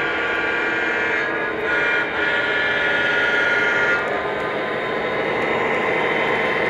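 Lionel Legacy O-gauge model diesel locomotives, their onboard sound system blowing a diesel horn that breaks off about a second in, then sounds again until about four seconds in. Under it is the steady rumble of the engine sound and the wheels rolling on the track.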